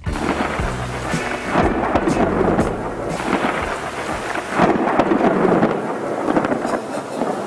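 Thunderstorm: heavy rain with rolling thunder that swells loudest a little past the middle.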